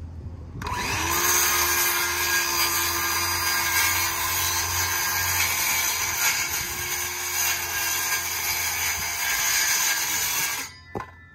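Circular saw spinning up about half a second in and cutting along a thin, wet plywood panel for about ten seconds, then switched off and winding down near the end.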